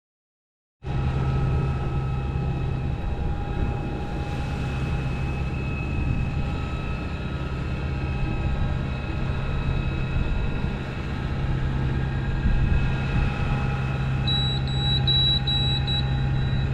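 A sailboat's inboard diesel engine running steadily under way, a low drone with a faint whine. Near the end a high electronic beeper sounds in a quick string of beeps, which the skipper finds irritating.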